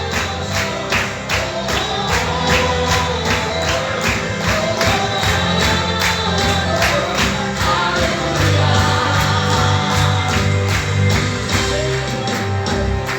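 Lively music with voices singing over a steady, fast percussive beat.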